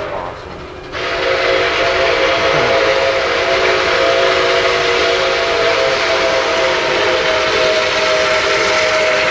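Locomotive air horn sounding one long held chord of several tones, starting about a second in over a loud rushing hiss.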